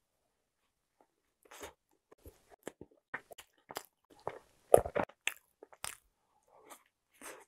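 A person biting and chewing a long soft filled bread bun: a run of short crunching and mouth-click sounds after a quiet first second or so, the loudest a bite a little under five seconds in.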